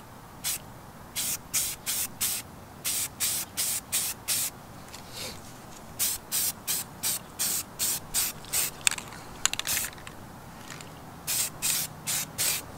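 Aerosol spray paint can spraying black paint onto a plastic car grab handle in short hisses, about three a second, in several runs with pauses between, applying another coat.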